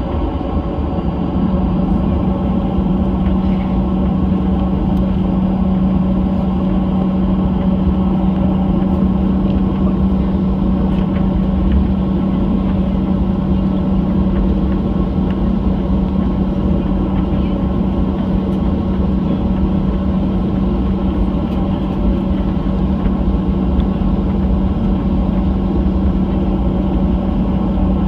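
Steady drone inside the cabin of a Boeing 737-800 on the ground, with one constant low hum and no change in pitch or level.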